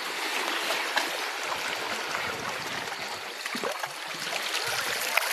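Shallow seawater washing and trickling among rounded boulders at the shoreline: a steady wash with small splashes and gurgles.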